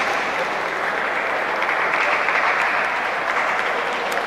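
Steady crowd noise filling a large indoor sports hall, an even wash of sound like distant applause.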